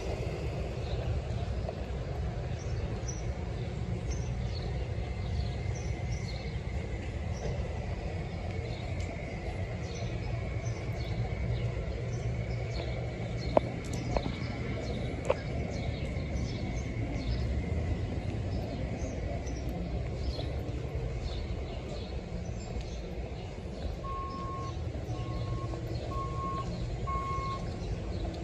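Steady low idle of a TTC diesel-electric hybrid city bus standing at the curb, with birds chirping. A few sharp clicks come around the middle, and four short beeps sound near the end.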